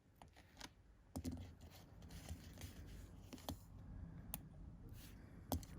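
Faint clicking and scratching of small hand tools and a car key fob circuit board being handled during soldering, with a few sharper clicks spread through it.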